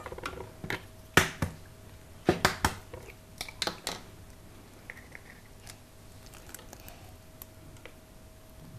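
Eggs being cracked on the rim of a plastic mixing bowl and broken open to separate yolks from whites. A few sharp taps come in the first four seconds, the loudest about a second in, followed by fainter clicks of shell, over a faint steady hum.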